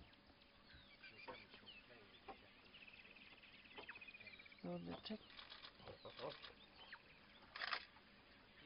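Faint ambience of scattered bird chirps, with a short rapid trill about three seconds in. A brief low murmur comes about five seconds in, and a short noisy rustle near the end.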